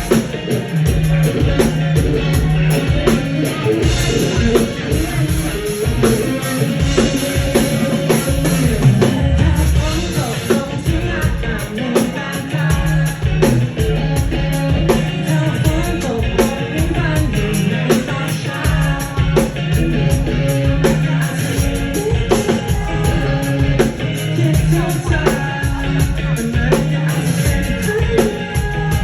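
Pop-rock band music with guitar, bass and a steady drum-kit beat.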